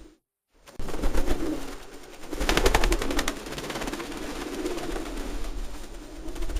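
Feral pigeons cooing in low, throaty, warbling coos. About two and a half seconds in, a burst of rapid clattering lasts about a second over the cooing.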